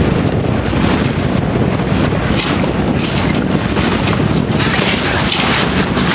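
Wind buffeting the microphone on a small sailboat under sail, with the rush of choppy water around the boat, surging in brief gusts.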